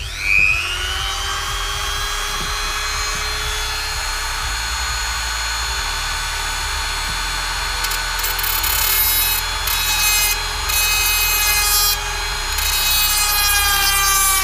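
Handheld rotary tool with a small cut-off disc spinning up with a rising whine, then running at a steady high whine. From about eight seconds in, the disc cuts into the glued-in encoder's metal legs on the circuit board in several short grinding passes, each adding a harsh hiss over the whine.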